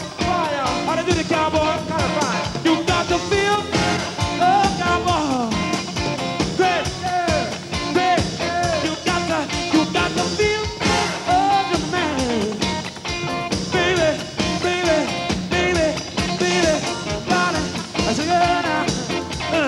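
A live rock band playing a funk-rock groove, with a steady drum beat under a lead line that keeps bending up and down in pitch.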